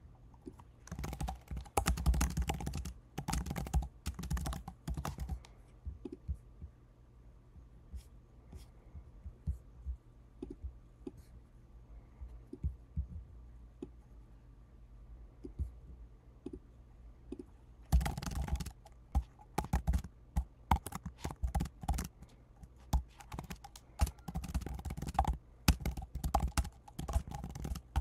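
Typing on a computer keyboard in two bursts of rapid keystrokes, the first about a second in and lasting about four seconds, the second from about eighteen seconds on, with a few scattered single clicks between.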